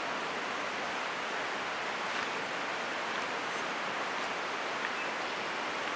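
River rapids, water rushing over and around boulders in a steady, even wash of noise.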